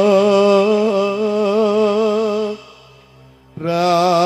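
A singer holding long, wavering sung notes in a slow Javanese vocal line, like a chanted tembang. The first note breaks off about two and a half seconds in, and a new note starts about a second later.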